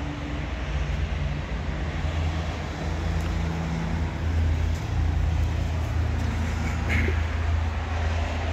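Steady low rumble of a running motor with a faint hum, and a short click about seven seconds in.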